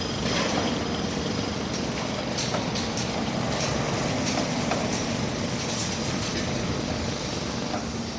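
Skyscraper construction site din: a steady rumble of heavy machinery with scattered metal clanks and knocks.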